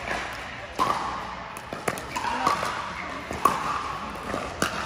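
Pickleball paddles striking a plastic ball and the ball bouncing on the court during a doubles rally: several sharp pops, irregularly spaced, over a background murmur of voices.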